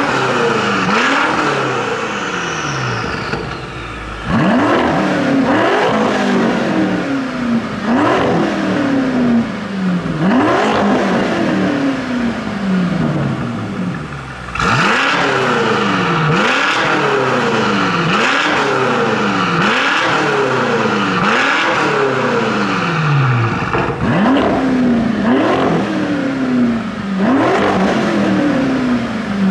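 BMW M5 F90 and M6 Competition twin-turbo V8s with an Akrapovic titanium exhaust, standing still and being revved in turn. Each rev rises sharply and falls back, roughly one every one to two seconds, sometimes overlapping, with brief lulls about four and fourteen seconds in.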